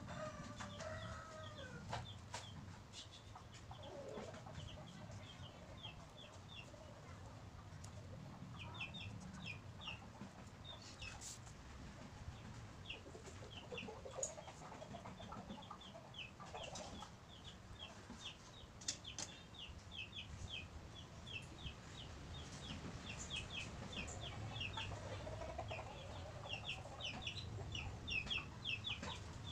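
Chickens clucking now and then, over runs of quick short scratching strokes from a felt-tip marker colouring in on paper.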